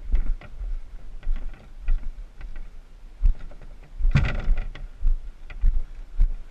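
Footsteps thudding and crunching on a rocky dirt trail under a carried canoe, with small knocks and creaks from the canoe riding on the portager's shoulders. A louder scuffing rustle comes about four seconds in.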